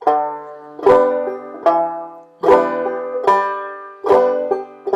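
Five-string banjo played clawhammer style at a slow teaching pace: a measure of picked notes and brushed strums over a fretted chord, with a sharp strike about every second, each left to ring.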